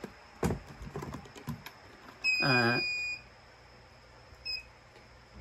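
Handheld Black Hawk treasure scanner: clicks as its buttons are pressed, then a high electronic beep lasting about a second, and one short beep near the end.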